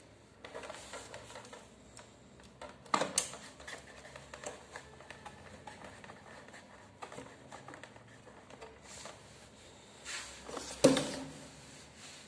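Coaxial F-connectors being screwed onto a satellite multiswitch's input ports by hand: small metal clicks and scrapes, with two louder knocks, about three seconds in and near the end.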